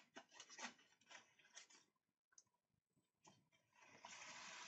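Faint rustling and light clicks of punched paper tape being handled and threaded into a homemade paper tape reader, with a brief steadier rustle near the end as the tape passes through.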